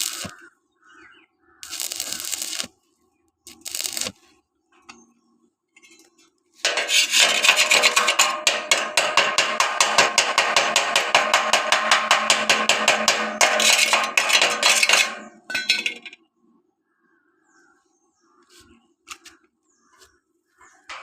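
Electric arc welding on thin 1.6 mm steel square pipe. A few short crackling arc bursts are followed, about six seconds in, by a continuous crackling arc that lasts roughly nine seconds and then stops abruptly.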